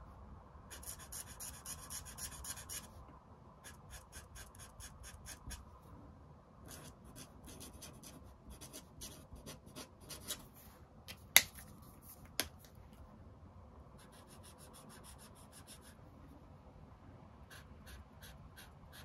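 Marker nib scratching and rubbing on paper in runs of quick short strokes as colour is scribbled in and a word is written, with two sharp clicks a little past the middle.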